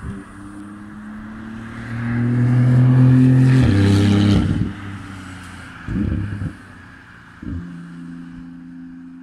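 A sports car passing at speed on a race track: its engine note grows as it approaches, is loudest about three to four seconds in, and drops in pitch as it goes by. Two short low thumps follow, and near the end another steady engine note is heard.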